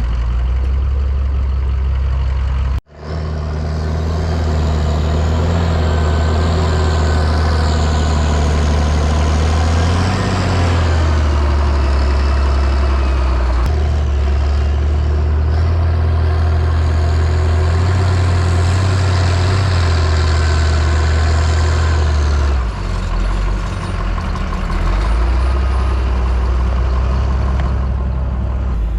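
A heavy truck or machine engine running steadily, with small changes in pitch as it works, broken off suddenly for a moment about three seconds in.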